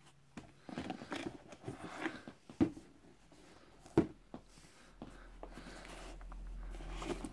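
Hands handling Nike Air Max 95 trainers and their cardboard shoebox: rustling and scraping, with two sharp knocks about two and a half and four seconds in, the second as a shoe is set down in the box. A low rumble comes in over the last couple of seconds.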